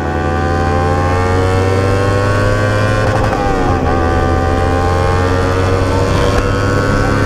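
Kawasaki Ninja 300's parallel-twin engine running while the bike is ridden, its note climbing slowly under light throttle, easing briefly about three seconds in, then holding steady.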